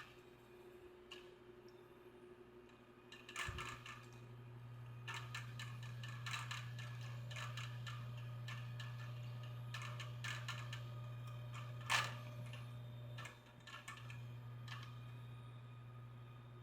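Faint scrubbing, scratching and small clicks of a circuit board being cleaned of solder flux with solvent around a freshly soldered power jack. Under it runs a low steady hum that comes on about three and a half seconds in and weakens near the end.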